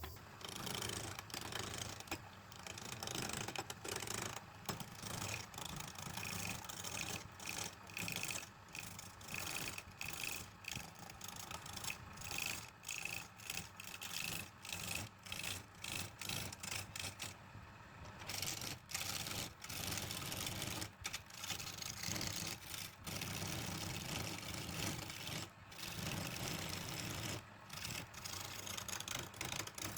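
Wood lathe running while a tool rubs against the spinning wood, a steady scraping whir broken by many brief gaps as the tool lifts off and goes back on.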